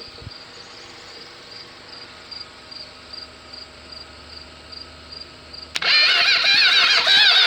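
Crickets chirping, then about six seconds in an electric starter suddenly cranks the engine over, its whine wavering up and down with each labouring turn. The engine turns over hard and slow, which the owner takes for worn connecting-rod bearings in the bottom end.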